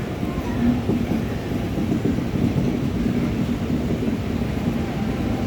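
Train running with a steady low rumble and a faint hum.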